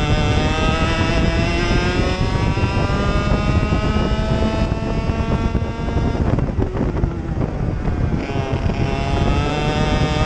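Racing kart engine heard onboard, its pitch climbing steadily as the kart accelerates, then dipping and breaking up for about two seconds around six seconds in before climbing again.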